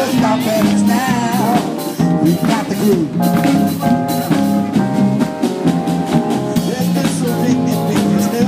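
Live band of saxophones and trombones playing over a drum kit, with held horn notes, and a man singing into a microphone.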